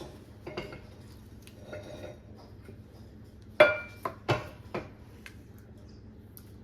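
A serving utensil knocking and clinking against a pot and a plate as chili is dished out, with one loud ringing clink about three and a half seconds in and a few lighter knocks around it.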